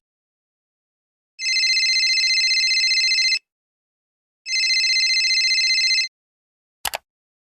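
Telephone ringing twice: two trilling rings of about two seconds each, a second apart, followed near the end by a short click.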